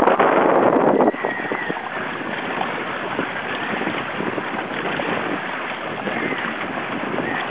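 Wind buffeting the microphone and water rushing past the hull of a sailing outrigger canoe in a strong breeze. It is louder for about the first second, then drops suddenly to a steadier, lower rush.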